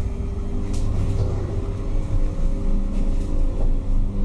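Steady low electric hum from a 1984 Valmet hydraulic lift car's running machinery, with a faint brief hiss about a second in and again near the end.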